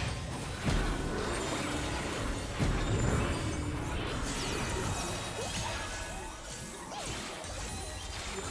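Two cats fighting: scuffling and hissing, with two sudden thumps about a second in and near three seconds in, and a couple of short cries later.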